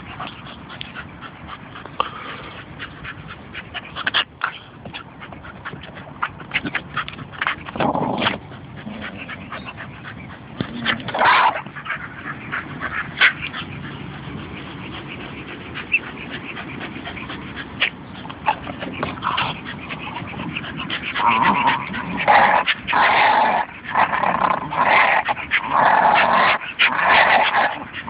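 Staffordshire bull terriers vocalising, with scattered clicks and knocks, then a dense run of repeated high-pitched calls in the last third.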